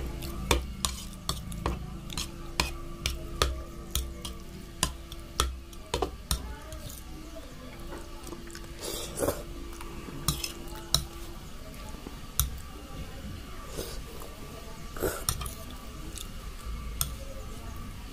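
Metal fork clinking and scraping against a plate while twirling noodles, many sharp clicks at an uneven pace, with a few slurps and chewing of noodles in between.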